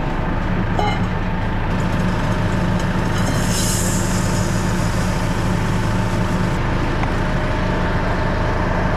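McCormick MC130 tractor engine running steadily under way, with a brief hiss about three and a half seconds in.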